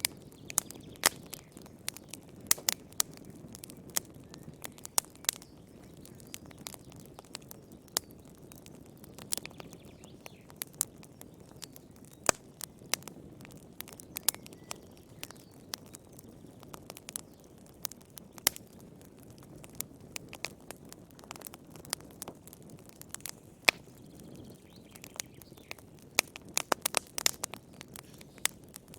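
Wood fire crackling: irregular sharp pops and snaps over a soft low hiss of flames, with a quick cluster of pops near the end.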